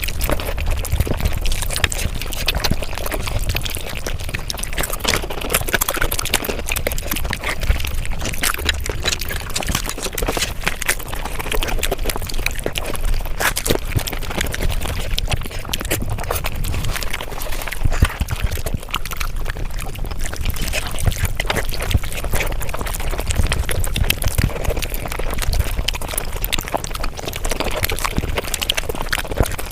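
Mukbang eating sounds sped up five times: a dense, unbroken stream of rapid wet chewing and smacking clicks.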